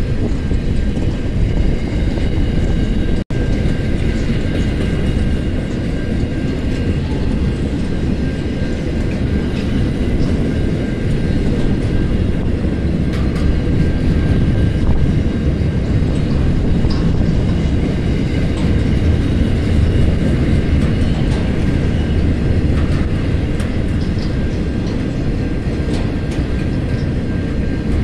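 Freight wagons of a long intermodal and steel train rolling past at speed: a steady rumble of steel wheels on rail, with light clicking over rail joints and a faint steady high tone above it. The sound cuts out for an instant about three seconds in.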